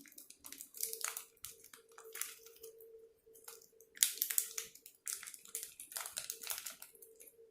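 Plastic snack-style pouch crinkling and rustling in a run of short, irregular crackles as diced potatoes are shaken out of it into a cup.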